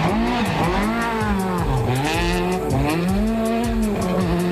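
High-revving engine of a Honda hatchback rally car, its pitch dropping and climbing again four or five times as it is revved up and down through gear changes. Background music plays underneath.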